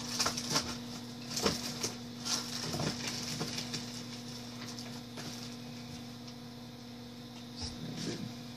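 Plastic card sleeves being pulled from their pack and cards handled: light rustling and scattered small clicks, busiest in the first few seconds and again near the end, over a steady low electrical hum.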